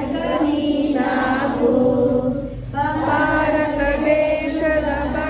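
A group of voices singing a Kannada song together in unison, holding long notes, with a brief breath pause about two and a half seconds in.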